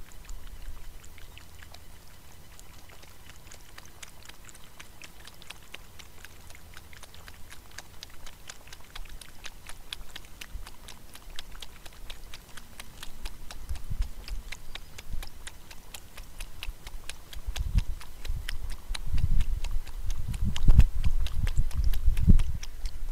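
Kangaroo lapping water from a trough right beside the microphone: a fast, steady run of small wet clicks. Late on, louder low thuds and bumps come in as the animal moves at the trough's edge.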